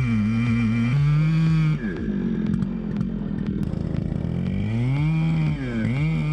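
Engine running at high revs, its pitch wavering, dropping off about two seconds in and climbing back up near five seconds.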